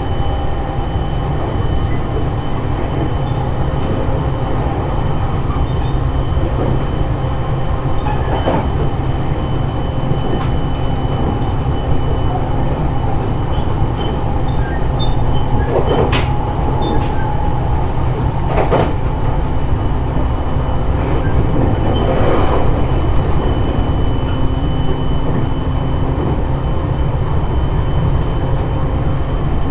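Running noise heard inside a JR East E721-series electric multiple unit travelling between stations: a steady rumble of wheels on rail with a faint steady high tone, and a few sharp clicks scattered through it.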